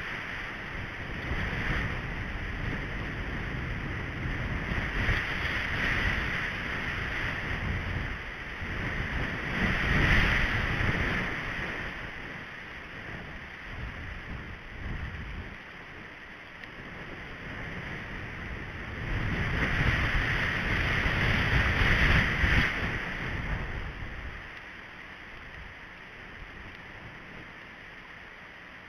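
Wind buffeting an outdoor camera microphone, a noisy rumble that swells and eases in gusts, strongest about a third of the way in and again past two-thirds, then dying down near the end.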